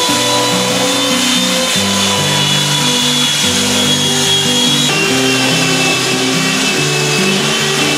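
Background music with a bass line of stepping notes, laid over an electric sander running steadily with a high whine as it sands old epoxy-fibreglass laminate off a boat hull. The whine shifts pitch about five seconds in.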